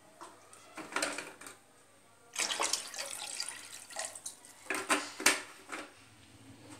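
Water poured from a bottle into a pot that already holds water, splashing in a few separate pours, the longest about two and a half seconds in. There is a sharp knock a little after five seconds in.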